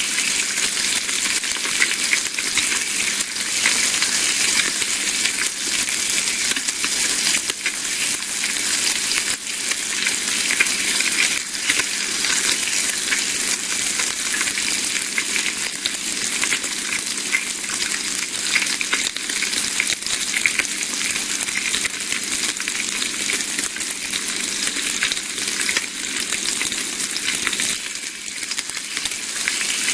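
Bacon sizzling in a frying pan: a steady, dense hiss thick with small crackling pops.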